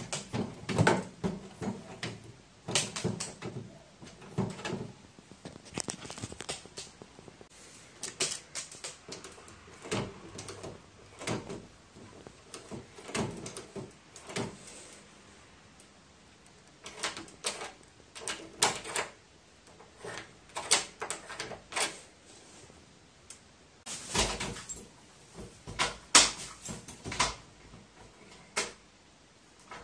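Metal door lever handle being pressed and released, its mortise latch bolt clicking and clacking in the lock: a long run of irregular clicks and knocks, loudest near the end.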